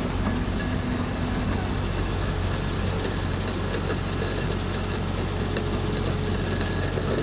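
Heavy vehicle engine running steadily: an even low drone with no change in pitch or level.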